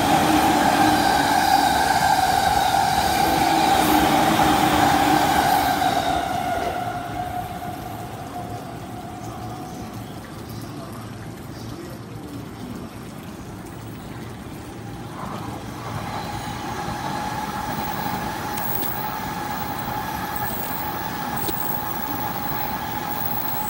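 Orange-and-green striped JR commuter train running past the platform, loud for the first six seconds or so and then fading away. From about sixteen seconds in, an N700 Tōkaidō Shinkansen passes on the far tracks with a steady whine.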